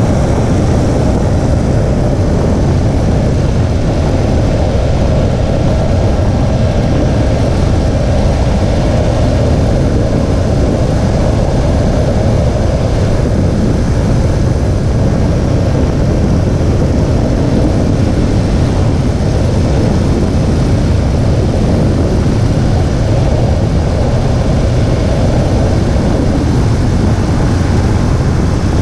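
2017 Infiniti Q50 with a VR30 twin-turbo V6 being driven: a steady low rumble of engine, road and wind noise with no sudden events.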